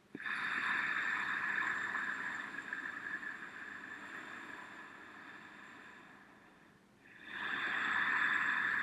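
Ujjayi breathing: a slow, hissing breath drawn through a narrowed throat with the lips sealed. One long breath starts sharply just after the start and fades away over about six seconds, and the next begins about seven seconds in.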